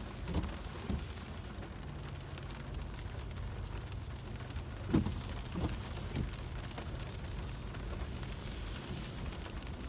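Rain drumming on a car's roof and windshield, heard from inside the car, over a low steady hum, with a few short soft knocks, the loudest about halfway through.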